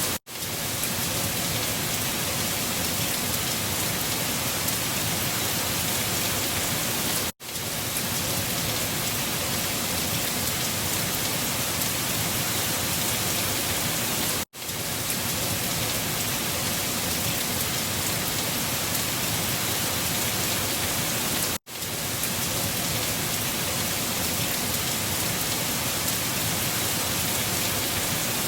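Steady wind-storm noise, an even full hiss with no gusting swells. It drops out for a split second and starts again about every seven seconds, a short recording played on a loop.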